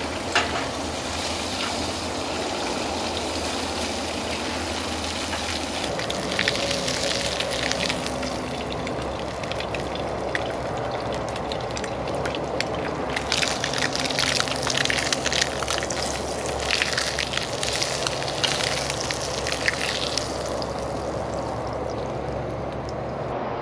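Fish fillets frying in hot peanut oil: a steady sizzle, with bouts of denser crackling and popping about six seconds in and again from about thirteen to twenty seconds in.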